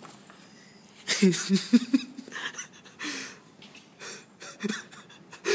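A person's short, breathy vocal bursts without words, starting about a second in and recurring through the rest.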